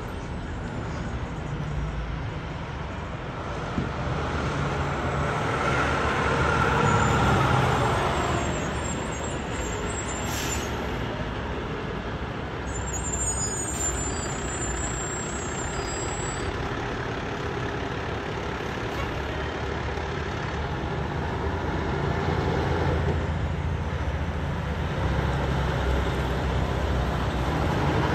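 Fire department tower ladder truck's diesel engine running as the truck drives slowly past and pulls up, a steady low engine hum over street traffic, with a short hiss about ten seconds in.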